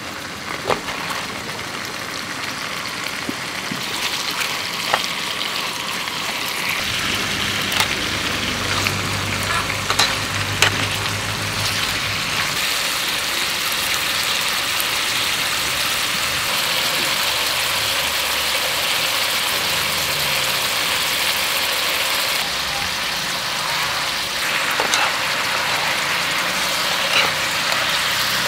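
Beef and vegetables sizzling in a hot griddle pan on a portable gas stove, a steady frying hiss with scattered sharp pops. It grows louder over the first few seconds, then holds.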